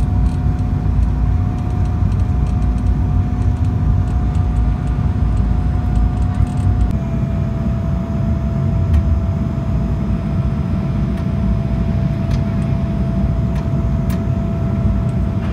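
Jet airliner cabin noise in flight: a steady low rumble with a thin engine whine. About seven seconds in, the whine steps down slightly in pitch.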